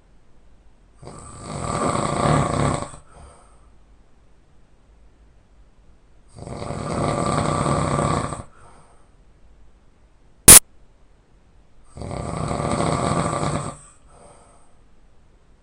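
A man snoring loudly in sleep: three long snores about five seconds apart, each lasting around two seconds. One sharp click, louder than the snores, falls about ten seconds in.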